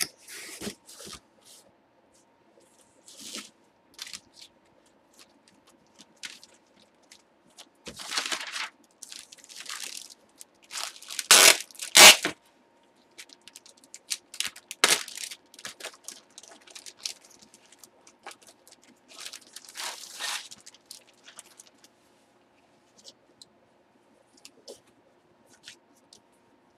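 Cardboard mailer boxes being handled: scattered rustles, scrapes and crunching noises. The loudest are two sharp cracks or tears about eleven and twelve seconds in. A faint steady hum runs underneath.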